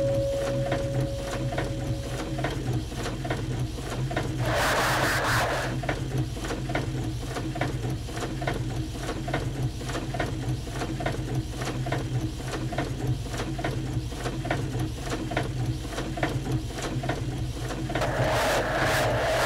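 Printing-press machinery clattering in a fast, even rhythm of clicks over a steady low hum, arranged as an experimental piece. A held tone sounds over it in the first two seconds or so, and a short rushing noise comes about five seconds in and again near the end.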